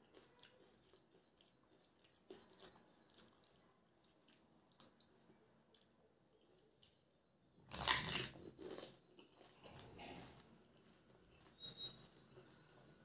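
A pani puri's crisp fried shell crunching loudly as it is bitten about eight seconds in, followed by quieter crunchy chewing; faint small clicks and crackles of the puris being handled come before it.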